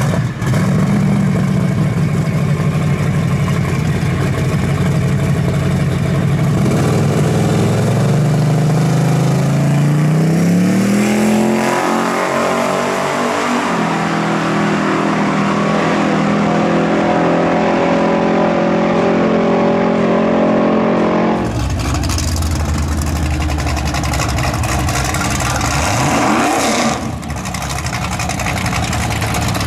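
Drag-racing muscle car engines. A steady engine note climbs in pitch as a car accelerates, holds high, and then cuts suddenly, about two-thirds of the way in, to another car's deeper, lower engine rumble.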